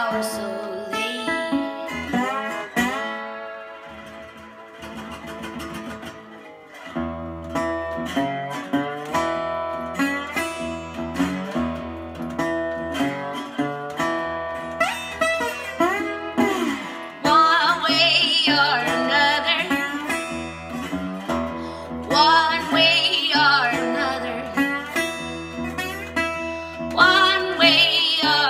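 A Mule resonator guitar played fingerstyle, with a woman singing a bluesy vocal over it. The singing eases off for a few seconds early on, leaving the guitar quieter, then comes back as a steady low bass figure drives the guitar part.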